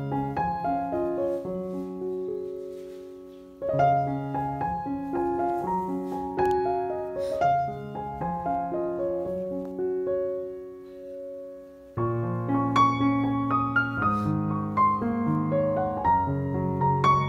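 Piano music: a gentle melody of single notes in short phrases, growing fuller with lower notes about twelve seconds in.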